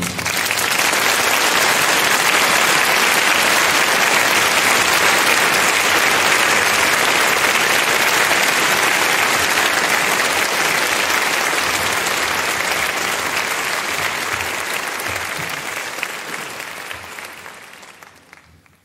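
Audience applauding steadily, then fading out over the last few seconds.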